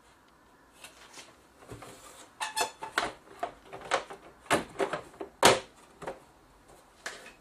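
Plastic back cover of an LCD TV being handled and fitted onto the set: an irregular run of knocks and clicks, the loudest about five and a half seconds in.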